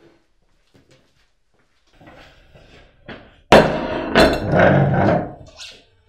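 A plate set down on a wooden dining table, then a wooden dining chair pulled out and sat in. The chair scrapes with loud knocks about halfway through and fades before the end.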